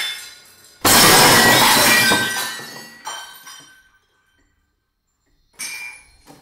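Glass shattering on a tile floor. A loud crash comes about a second in, with shards ringing and tinkling as they scatter and settle, and a smaller crash follows about three seconds in. After a moment of quiet, another short burst of breaking glass comes near the end.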